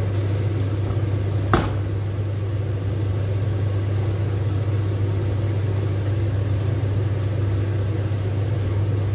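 Squid simmering and sizzling in sauce in a nonstick wok, over a steady low electrical hum. One sharp tap about a second and a half in.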